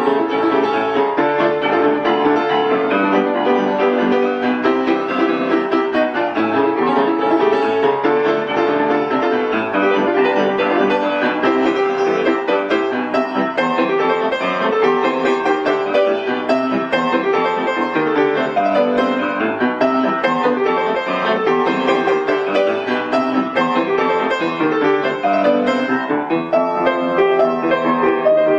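Background music led by piano, with many quick notes over steady chords.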